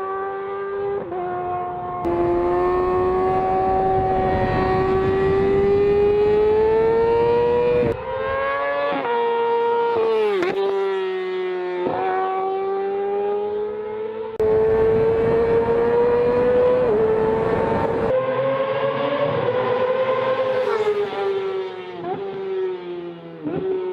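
Yamaha motorcycle engine running at high revs with a steady, high, buzzing tone. The pitch slowly climbs, then drops sharply several times. A rushing noise switches on and off abruptly in long stretches.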